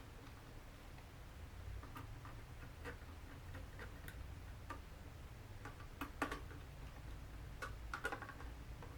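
Faint, irregular small clicks of a precision hex screwdriver tightening and seating the tiny cover screws of a DJI Mavic Pro drone, over a low steady hum.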